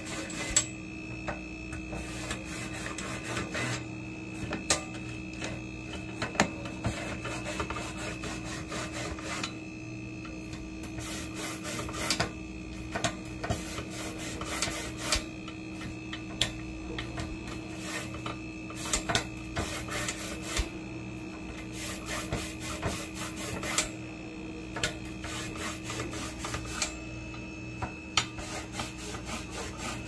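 A toothbrush scrubbing and scraping along refrigerator condenser coils, with frequent small clicks and taps as the brush and a thin tool knock against the metal tubes and wires, over a steady hum.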